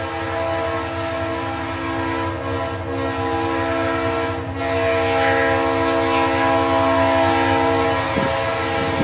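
Diesel locomotive air horn sounding in the distance, a chord of several steady tones held long, briefly breaking about four and a half seconds in and then louder, over the low rumble of the accelerating train.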